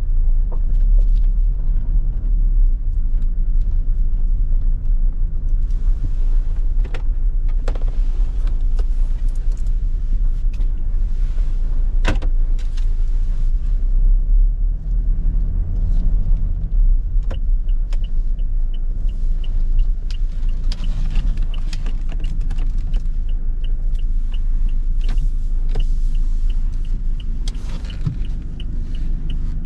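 Toyota Kijang Innova Reborn's 2GD-FTV 2.4-litre four-cylinder turbo diesel and road noise heard while driving: a steady low rumble with a few sharp knocks. About halfway through a regular ticking joins in, roughly twice a second.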